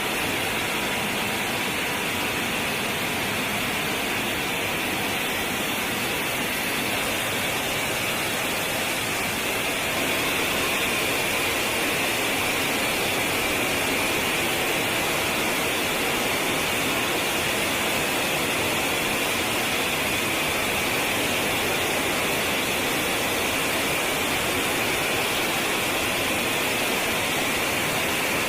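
Steady jet engine noise, an unbroken hissing roar that gets a little louder about ten seconds in.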